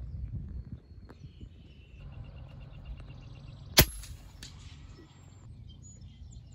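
A single shot from a suppressed FX PCP air rifle, about two-thirds of the way in: one sharp crack.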